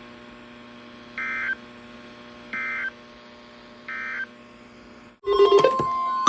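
Emergency Alert System end-of-message data bursts: three short, screechy digital chirps about 1.3 seconds apart over a low hum of broadcast audio, marking the end of the alert. About a second before the end the audio cuts to something much louder, with steady tones and clicks.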